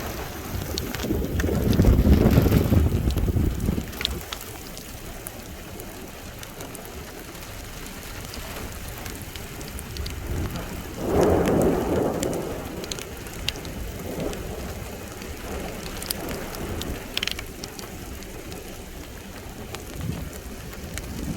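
Rain falling steadily, with scattered sharp drop ticks, and two low rumbles of thunder: one about a second in lasting a few seconds, and another near the middle.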